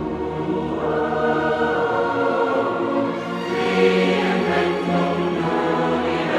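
Choral music: a choir singing held chords.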